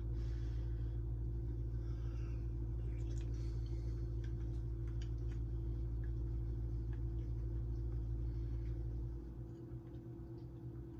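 Steady low hum with faint clicks of a spoon in a bowl and soft chewing as someone eats oatmeal. The hum drops and the sound gets quieter about nine seconds in.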